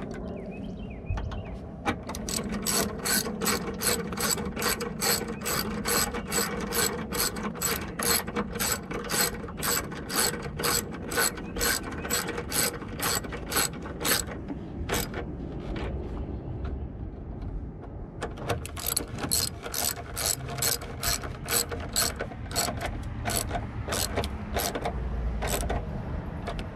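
Hand socket ratchet clicking steadily, about two clicks a second, as it drives in a headlight mounting bolt. The clicking pauses for a few seconds past the middle, then resumes.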